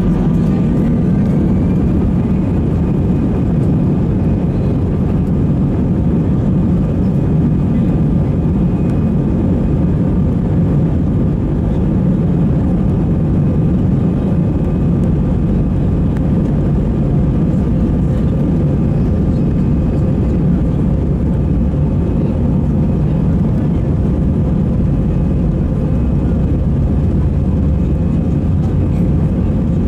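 Cabin sound of an Airbus A320-216 taxiing, heard from a seat over the wing: its CFM56 engines and airflow make a steady rumble, with a thin, steady whine on top.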